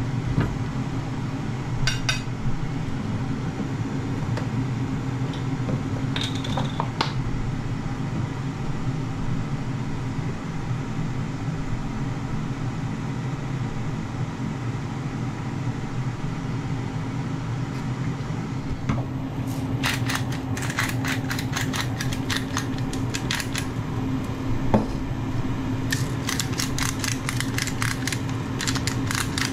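A Ninja dual-drawer air fryer's fan runs with a steady low hum, with a few clicks of metal tongs against the basket early on. From about two-thirds of the way in, a hand grinder is twisted over the potatoes in a rapid run of clicking, with one sharp knock partway through.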